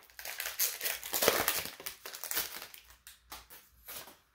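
Foil booster-pack wrapper crinkling and tearing as a trading-card pack is opened by hand: a dense run of crinkles for about three seconds, then a few lighter ones.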